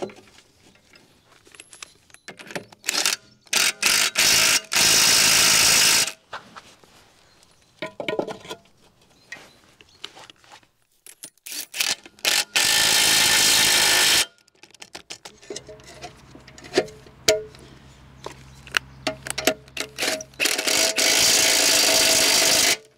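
Cordless impact wrench hammering bolts tight on a mini excavator's track sprocket and bottom rollers. There are three long bursts of one and a half to two seconds, with shorter bursts and clinks of metal parts being handled between them.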